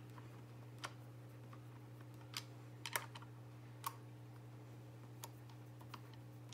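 Half a dozen light, scattered clicks and taps of a T-handle hex wrench on the hex-head screws and plastic circuit-board cover of an Ion Alpha ice auger as the screws are backed out, over a steady low hum.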